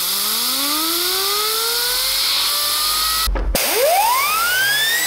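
3D-printed two-stage centrifugal compressor spinning up: a whine rising steadily in pitch over a rush of air. About three seconds in the sound breaks off briefly, then the spool-up starts again from low and the whine climbs quickly.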